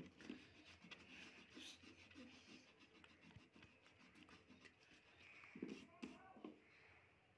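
Faint short strokes of an eraser rubbing on drawing paper, with a faint voice in the background, most audible about six seconds in.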